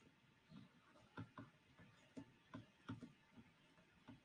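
Near silence with faint, irregular clicks and taps, roughly two a second.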